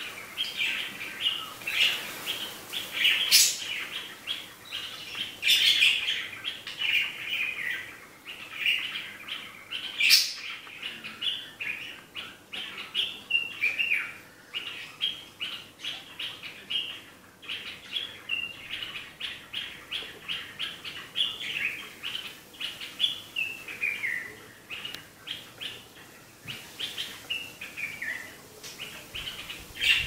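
Dark-capped bulbul singing short, repeated chirpy phrases, some sliding down in pitch, the song rendered as "sweet sweet sweet-potato". Budgie chatter runs underneath.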